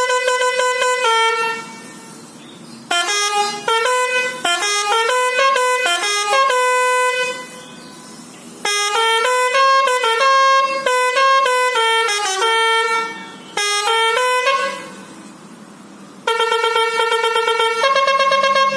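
Telolet horn on a lorry, a multi-tone musical horn, playing tunes in loud phrases of stepping notes separated by short pauses. The last phrase, near the end, pulses rapidly.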